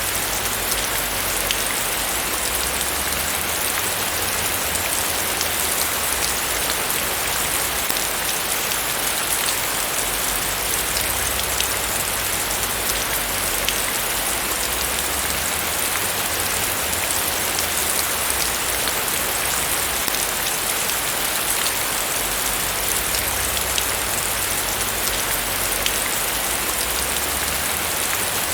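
Heavy rain falling steadily, a dense even hiss of drops hitting surfaces with fine patter throughout.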